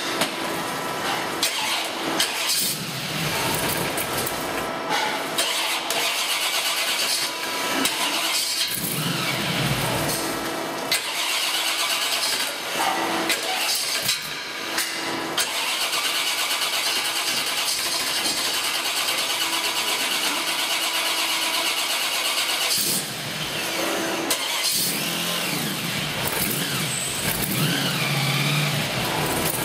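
Blown 357 cubic inch small-block Chevy V8 with a 6-71 supercharger and two Holley carburettors, running on an engine stand, its pitch rising and falling at times as the throttle is worked.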